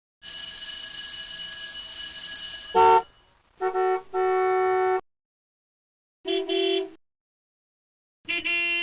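Toy car horn sounds. First a steady, high electronic ringing tone lasts about two and a half seconds and ends in a short loud blast. Then comes a brief beep and a longer horn honk, followed by two more separate honks.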